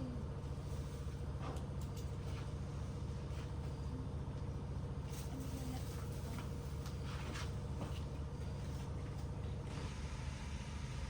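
A motor engine running steadily: a continuous low hum with a faint higher steady tone that drops out near the end, and a few light clicks over it.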